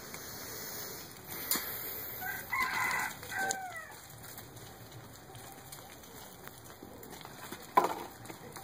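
A rooster crows once, about two seconds in, the call dropping in pitch at its end. A sharp knock comes near the end.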